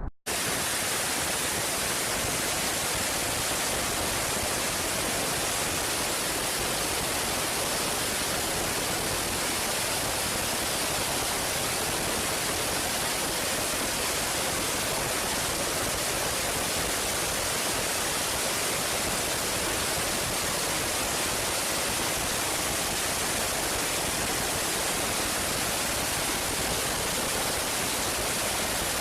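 Steady, unchanging hiss of static-like noise that starts abruptly and holds the same level throughout.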